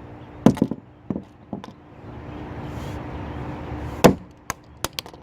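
Repeated sharp blows smashing a plastic fidget cube: a cluster of hits in the first second and a half, then a loud strike about four seconds in followed by a few quicker ones.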